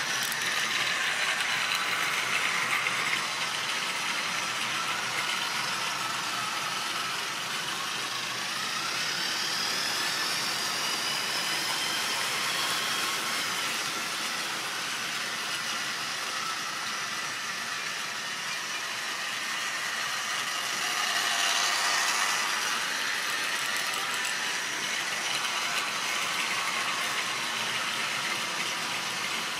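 Model railway train running on the track: a continuous mechanical rattle of wheels over the rails with the electric motor's whine. The whine rises and falls in pitch about ten seconds in, and the sound grows briefly louder a little over twenty seconds in.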